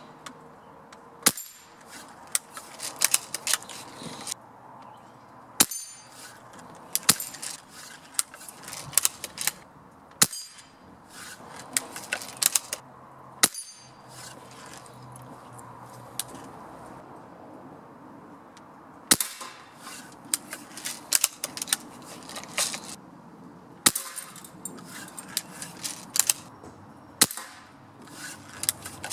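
Pellet gun shots, about seven of them, roughly four to five seconds apart, striking steel targets with a sharp clang and brief ring. Each is followed by a rattle of smaller metallic clinks.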